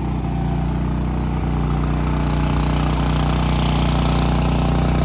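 An engine running steadily at idle: an even, low drone that grows a little louder in the second half.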